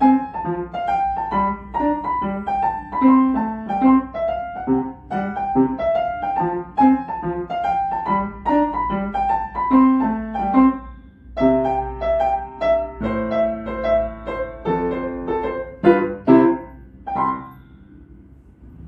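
Piano playing a melody over a repeated low accompaniment. About eleven seconds in, it moves to longer held chords. The closing chords ring out and fade shortly before the end.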